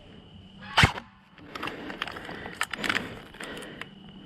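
A single sharp crack a little under a second in, then a run of crackling rustle with many small clicks, like dry leaves and twigs on a forest floor being disturbed.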